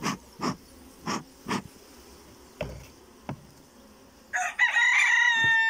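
A bee smoker's bellows puffs four times in quick succession, followed by a couple of light clicks. Then a rooster crows one long call that drops in pitch at the end. Under it all is a low hum of honeybees from the open hive.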